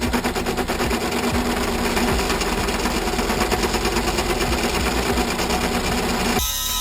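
Small metal lathe running and taking a cut with a high-speed steel tool: a fast, even rattle over a steady hum. Near the end the sound changes abruptly to a hiss with steady tones.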